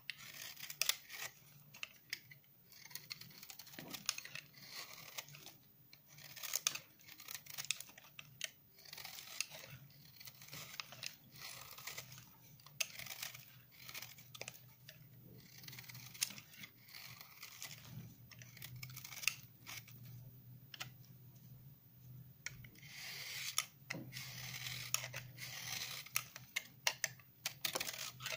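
Snap-off utility knife blade shaving curls off a hard, dried bar of 72% laundry soap: a run of short, crisp, crunchy scraping strokes, about one or two a second, irregular in spacing.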